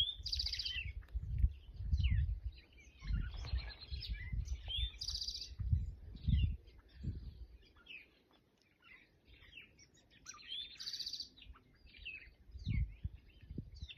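Several wild birds singing and calling in a meadow: short chirps, whistled notes and a few quick buzzy trills, overlapping and sparser for a couple of seconds past the middle. Irregular low rumbles come and go underneath.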